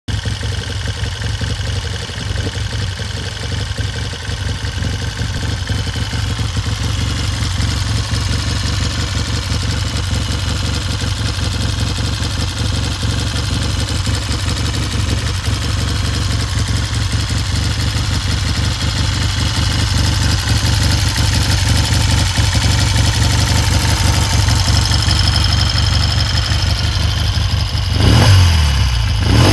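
1965 Triumph T90's 350cc parallel-twin engine idling steadily, then revved once near the end, its pitch rising and falling back to idle.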